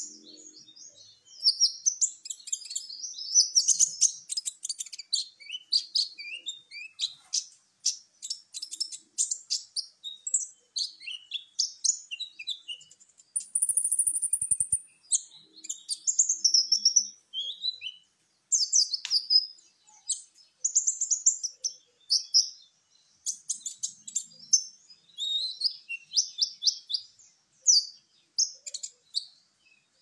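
Kolibri ninja sunbird singing: fast high-pitched chirping phrases and short trills, one after another almost without pause, with a brief steady high whistle about 14 s in.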